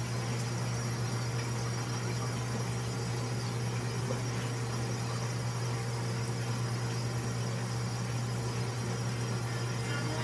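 Steady low electric hum with an even hiss over it, from a fan running without change.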